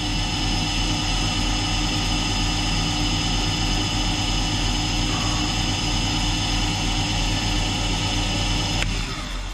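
Belt-driven mill drill running with its spindle and end mill turning, a steady mechanical hum with several fixed tones. It is switched off and winds down about nine seconds in.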